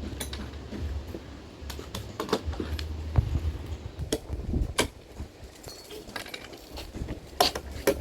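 Scattered metallic clinks and knocks of a hammer and loose nails being handled while old nails are worked out of boards, over a low rumble.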